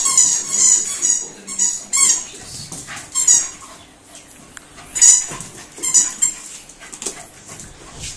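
Parson Russell terrier making excited, high-pitched squeaky noises in short bursts, several times over, during a post-bath burst of frantic running and rolling.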